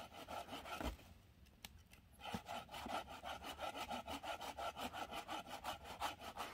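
Small hand saw cutting through a hardwood log in quick, even back-and-forth strokes, about four a second. The strokes pause for about a second, starting about a second in, then resume.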